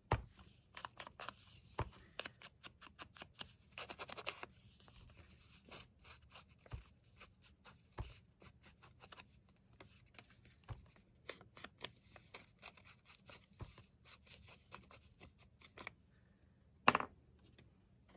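Foam ink blending tool dabbed on an ink pad and scrubbed along the edge of a paper strip: a quiet, rapid scratchy patter of short strokes. A single sharp knock comes near the end.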